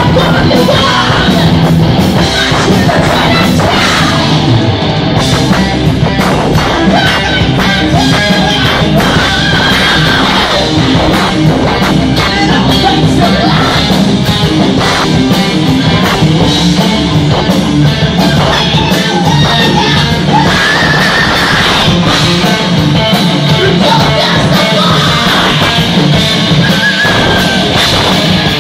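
Heavy metal band playing live and loud: electric guitars, bass and drums, with a singer singing and yelling over them.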